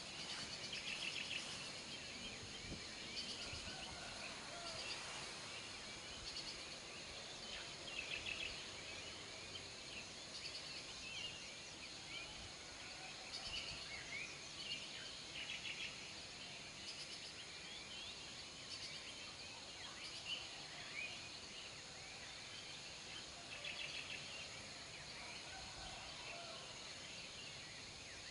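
Outdoor ambience: a steady high-pitched insect drone, with short trilled chirps recurring every few seconds. No rumble from the lava avalanches stands out.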